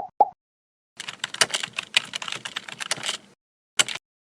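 Computer keyboard typing: a fast run of key clicks lasting about two seconds, with a short burst of clicks near the end. Two short blips come right at the start.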